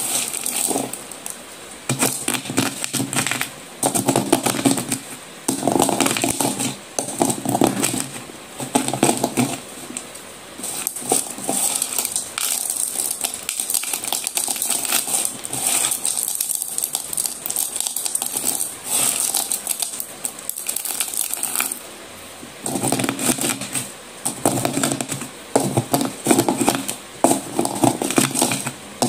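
Broken slate-pencil pieces clattering and crunching against each other in a bowl as they are stirred by hand and pressed with the base of a glass, in repeated bursts of dense small clicks with short breaks.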